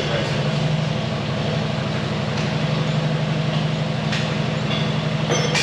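Diesel engine of farm machinery running at a steady speed, with a low even hum and a few faint ticks and clunks over it.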